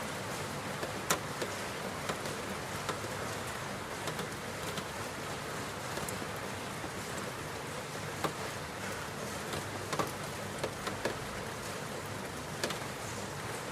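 Steady rainfall, an even hiss of rain with single drops hitting close by as sharp ticks now and then.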